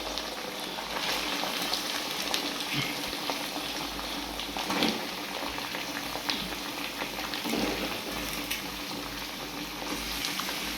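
Mutton frying in mustard oil in a kadai, sizzling and bubbling steadily, with a few light clicks.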